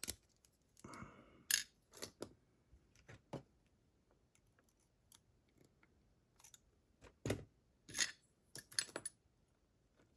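Lock-picking tools and a lock cylinder being handled: scattered small metallic clicks and scrapes, with a short rattle about a second in and a quick run of clicks near the end.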